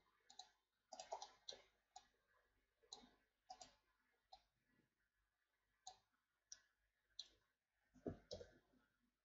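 Faint, irregularly spaced clicks of a computer mouse and keyboard keys being pressed, with a slightly heavier pair of clicks near the end.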